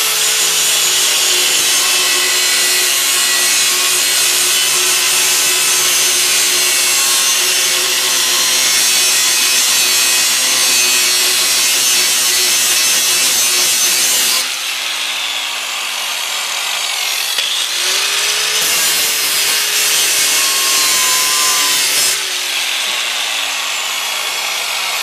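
Corded angle grinder with a cutting disc grinding steadily through a rusted steel lawnmower blade. About fourteen seconds in the trigger is let go and the motor winds down. A few seconds later it spins back up and cuts again, then winds down once more near the end.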